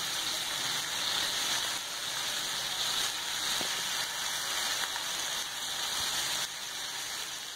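Chicken livers sizzling steadily on a flat tawa griddle, nearly done. The sizzle drops a little about six and a half seconds in.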